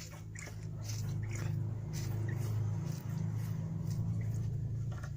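Primer bulb on a four-stroke brush-cutter engine's carburettor being pressed repeatedly, giving soft squishy clicks as it fills with fuel. A steady low hum underlies it, swelling over the first second.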